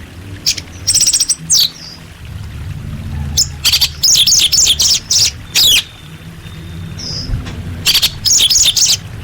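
Orange-headed thrush (anis merah) singing: short phrases of rapid, high chirps and trills, over a low steady hum.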